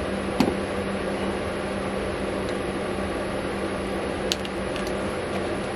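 A steady mechanical hum, with a sharp metallic click about half a second in and another about four seconds in, as a screwdriver pries at the wood plug stuck in a hole saw.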